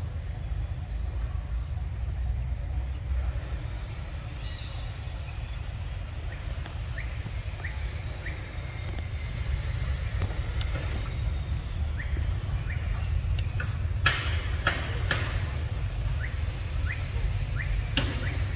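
Outdoor ambience: a steady low rumble like wind on the microphone, with scattered short, rising high chirps. A few sharp clicks come in the second half, two or three of them close together a little after the middle.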